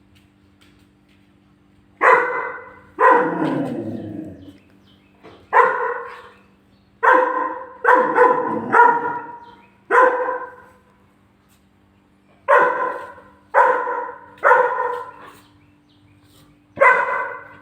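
German shepherd puppy barking angrily, about eleven sharp barks in irregular bunches starting about two seconds in, aimed at its own photo on the fridge. A faint steady hum runs underneath.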